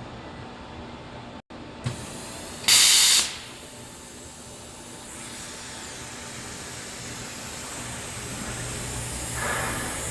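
A loud half-second hiss of gas from a Hypertherm HPR130 plasma cutting torch, coming a few seconds in just after a small click. A steady electrical hum runs underneath.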